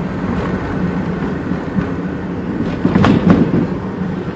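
Wind rumbling on a handheld phone microphone, with two sharp knocks a fraction of a second apart about three seconds in.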